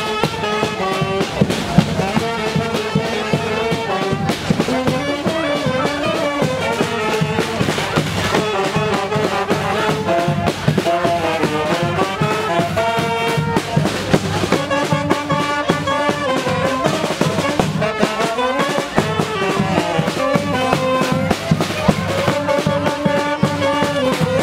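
Brass band playing a Brazilian carnival marchinha, trumpets and trombones carrying the tune over drums.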